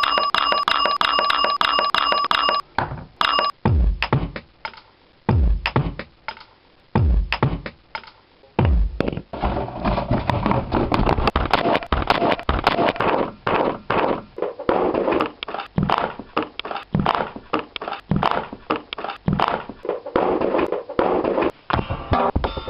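Loud electronic music: a steady high beeping tone over fast clicks at first, then four heavy bass thumps about a second and a half apart, then dense rapid beats.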